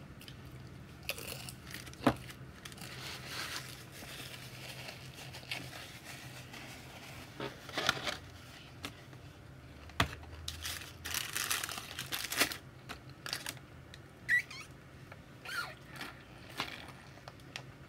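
Close-up eating sounds: chewing and crunching of salad and crispy bits, with crinkling of food packaging and a few sharp clicks. Near the end, a foil juice pouch crinkles and is sipped from through its straw.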